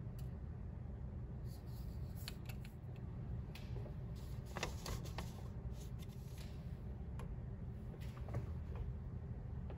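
Light handling noises on a workbench: scattered soft clicks, taps and rustles as the ball of etching ground is set down and a metal etching plate is handled on a paper-covered hot plate, over a steady low hum.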